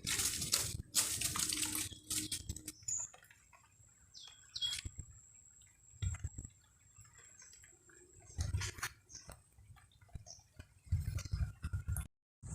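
Small water splashes and drips mixed with irregular handling clicks and rustles, with quieter stretches between.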